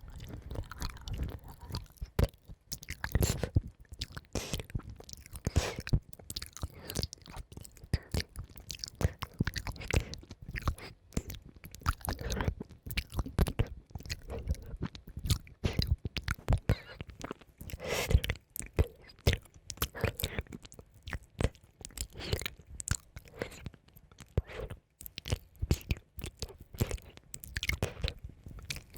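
Close-miked ASMR mouth sounds: a dense, irregular run of short wet clicks and crackles.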